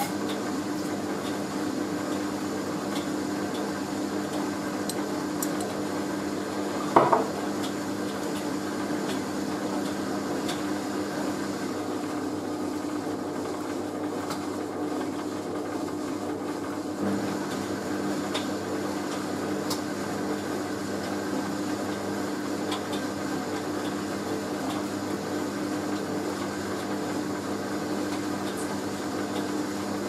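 Hoover A3060 Electronic 1100 washing machine running ahead of its spin, a steady motor hum with faint clinks from jumper buttons knocking against the drum. One loud knock about seven seconds in, and a lighter one a few seconds before the end of the first two-thirds.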